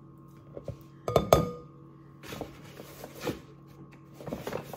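Measuring cup knocking and clinking against a ceramic mixing bowl as a cup of flour is scooped and tipped in: two sharp, ringing clinks about a second in, then a few lighter knocks.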